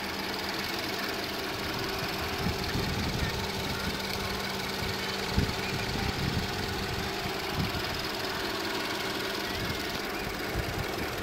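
Ford 3.5-litre EcoBoost twin-turbo V6 idling steadily with a low even hum.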